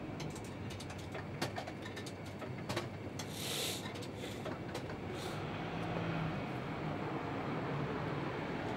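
Steady outdoor urban background noise like distant traffic, with a few sharp clicks in the first few seconds and a short hiss about three and a half seconds in.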